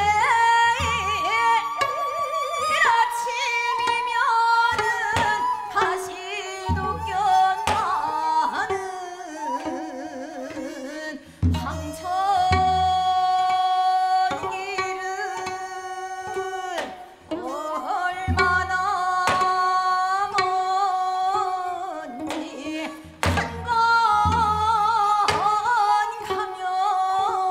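Woman singing Seodo sori, the folk-song style of Korea's northwestern provinces, in long wavering held notes with heavy ornamentation, accompanied by occasional deep hand-drum strokes.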